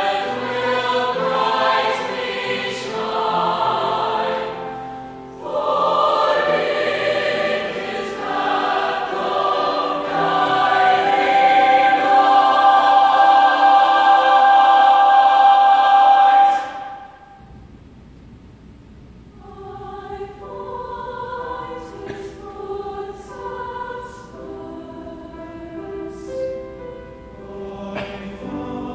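Mixed choir singing with piano accompaniment. A loud, long-held chord cuts off about two-thirds of the way through, and the music goes on much more softly.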